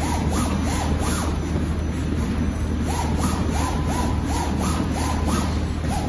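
Garment pattern plotter's inkjet print-head carriage moving across the paper: its drive motors give short rising-and-falling whines, a few a second, in a run near the start and another from about three seconds in, over a steady low hum.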